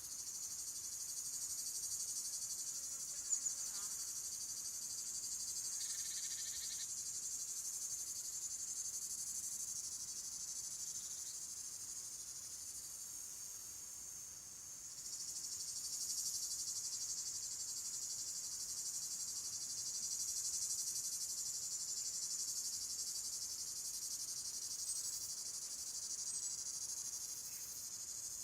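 Steady, high-pitched chorus of insects, thinning briefly about halfway through and then swelling again. A short sharp click sounds about three seconds in.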